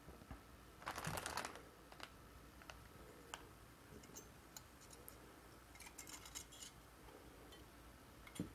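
Faint handling noises from a projector lamp assembly being turned over in the hands: scattered small clicks, with a brief rustle about a second in and again around six seconds.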